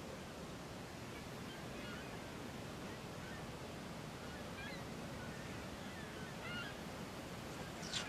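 Faint, scattered short chirping bird calls in the background over a low hiss, with a few soft clicks of a page being handled near the end.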